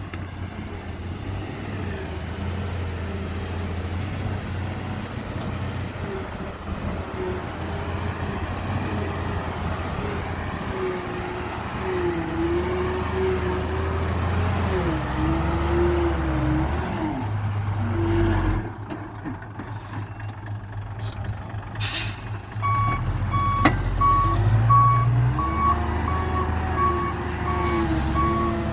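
Heavy diesel earthmoving machinery running, its engine rising and falling with load under a wavering whine. A sharp knock comes near the end, and then a reversing alarm starts beeping steadily.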